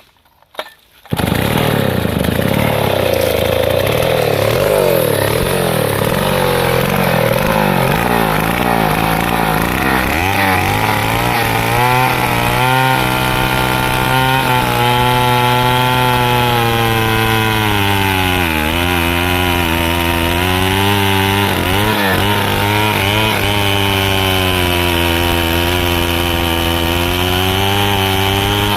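Stihl chainsaw running at high revs, cutting into a teak trunk; it starts suddenly about a second in, and the engine note dips a few times as the chain bites into the wood.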